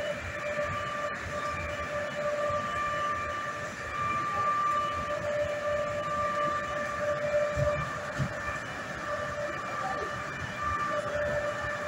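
Underground mine machinery running: a steady high whine with overtones that fades and returns, over a continuous low rumble.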